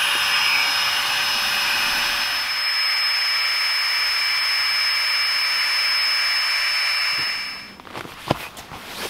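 Small battery-powered air pump (Max Pump 2 Pro) running steadily with a high whine, blowing up an inflatable sleeping mat. It cuts off about seven and a half seconds in, followed by a few clicks and handling knocks.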